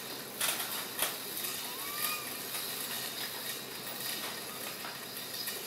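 A steady, high-pitched buzz of insects, with a couple of soft clicks about half a second and a second in and a brief faint chirp about two seconds in.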